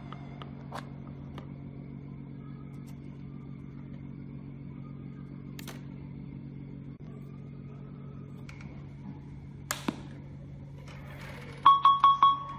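A steady low hum with a few faint clicks, then near the end four quick, loud electronic beeps from the homemade Bluetooth soundbar's speakers.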